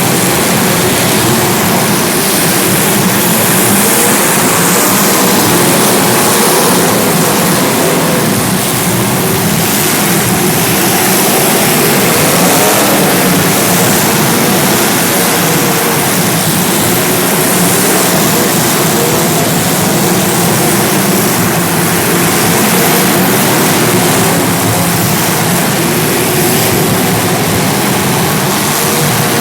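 Several small race-car engines running together at racing speed, their pitches wavering as they lap the track.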